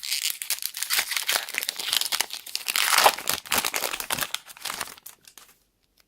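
Foil Pokémon booster pack wrapper being torn open and crinkled in the hands, a dense crackling that stops about five seconds in.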